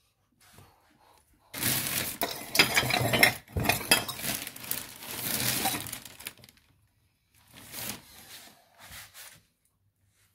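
Hard metal parts clattering and clinking as a pile of them is rummaged through, a dense rattle lasting about five seconds, followed by a few fainter handling sounds.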